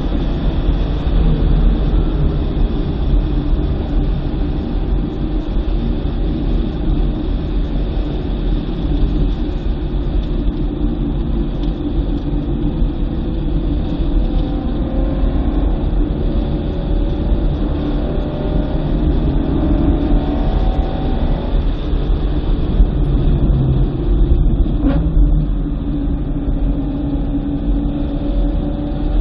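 2009 BMW M3's V8 engine pulling hard and easing off on a wet track, its pitch rising several times and dropping between, over a steady low rumble of road and tyre noise.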